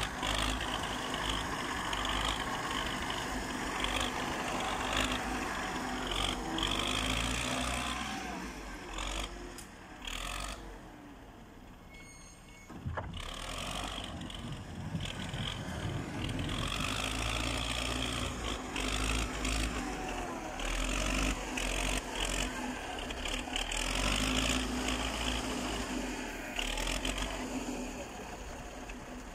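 Wheeled tractor-loader's engine running under load, with pitch rising and falling as it works its front bucket through snow. It drops to a quieter idle about ten seconds in, then picks up again about three seconds later.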